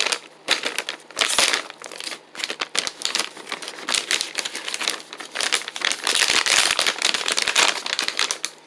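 Plastic jerky packaging crinkling in irregular bursts as it is handled and opened to get at the beef jerky.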